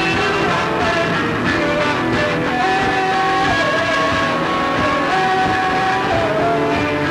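A punk rock band playing live at full volume: loud electric guitar and drums, with a singer holding long wavering notes twice.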